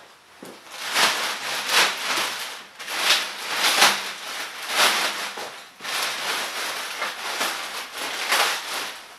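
Clear plastic bag crinkling and rustling as it is grabbed and pulled off an air compressor, in a run of bursts starting about a second in.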